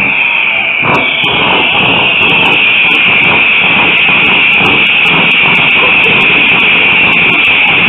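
Firework fountains hissing loudly and steadily, with quick crackling pops throughout and a single bang about a second in.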